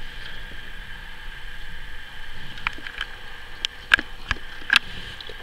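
Several sharp clicks of a fingertip tapping the HTC Sensation XE's touchscreen, from about two and a half seconds in, the loudest near four and near five seconds, over a steady background hiss with a faint whine.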